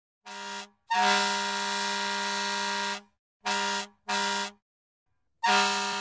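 Fire truck air horn sounding in a series of blasts: a short one, a long one of about two seconds, two short ones, then a last blast near the end that fades away. The pitch stays steady throughout.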